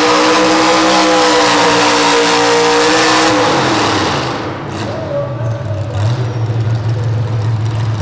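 Light pro stock pulling truck's engine running flat out at steady high revs while it drags the weight-transfer sled. About three seconds in the revs fall away as the pull ends, and the engine settles to an idle.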